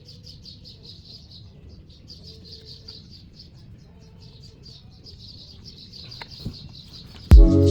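Rapid high-pitched chirping, about seven chirps a second, keeping a steady rhythm. Near the end, music comes in loudly with a heavy bass hit.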